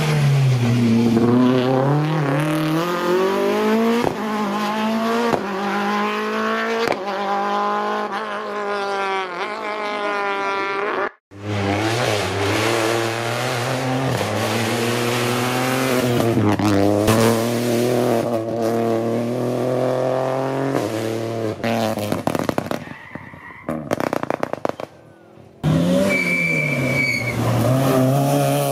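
Rally car engines revving hard as the cars come past, the pitch climbing through each gear and dropping at every shift, over several separate passes. Late on, a quieter stretch is broken by a run of sharp cracks and pops.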